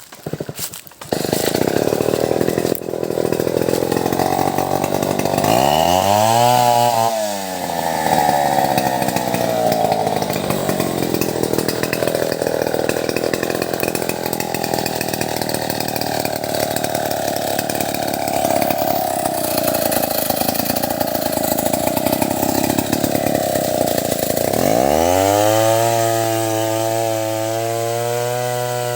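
Stihl 070 two-stroke chainsaw cutting into wood under load, its engine pitch briefly rising and falling about six seconds in. Near the end it comes out of the cut and runs steadily without load.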